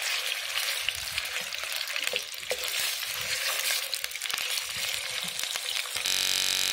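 Chicken pieces sizzling in hot oil in a nonstick karahi, raw chicken frying toward golden. A spatula turns them, with small clicks and scrapes against the pan. Near the end a short, steady buzz cuts in.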